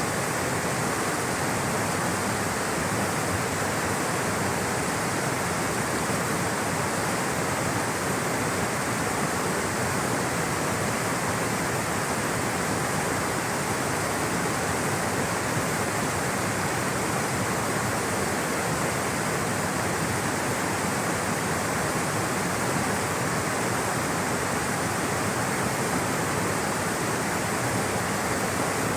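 Flowing water rushing steadily, like a stream or small waterfall: an even, unbroken rush with no changes.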